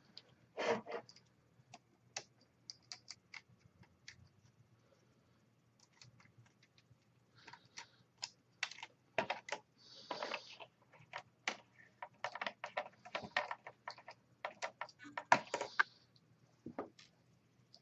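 Irregular light clicks and taps of a screwdriver working small laptop screws and of small parts being handled, with a couple of brief scrapes.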